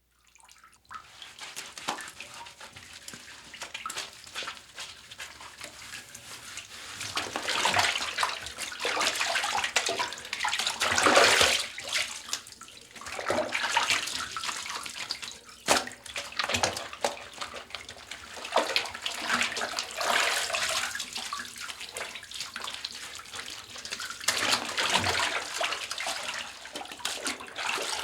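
Someone bathing in a bathtub: water splashing and sloshing in irregular swishes, with several louder stretches of splashing.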